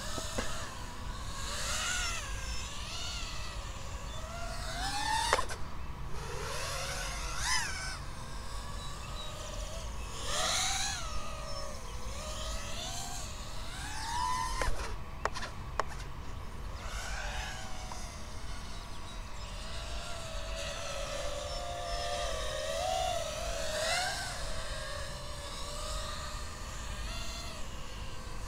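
A 5-inch FPV freestyle quadcopter's motors whining in flight, the pitch sweeping up and down irregularly as the throttle is worked through passes and manoeuvres. A few short sharp knocks come about five seconds in and again around fifteen seconds.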